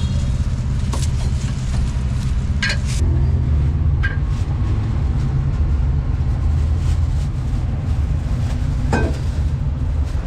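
Low, steady rumble of an engine running close by, with a few sharp knocks and clatters over it.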